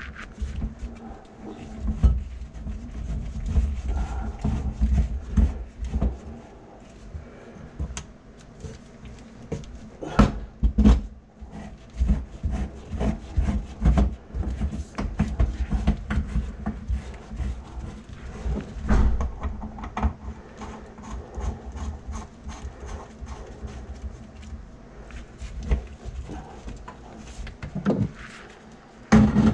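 Irregular knocks, clicks and rubbing from tools and gear being handled, over an uneven low rumble.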